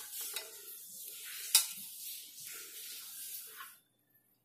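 Stainless-steel idli stand clinking against an aluminium steamer pot as it is set in, with a steady hiss under it and a sharp metal knock about a second and a half in. The hiss stops abruptly near the end.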